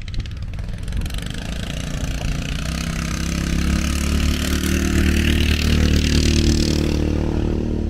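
An engine running at a steady pitch, growing steadily louder over about six seconds, with a hiss over it, then cut off abruptly.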